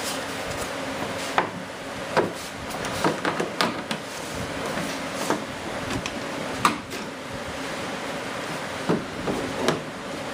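Scattered light knocks and clicks, about seven spread unevenly, from parts of an RC jet model being handled and fitted, over a faint steady hum.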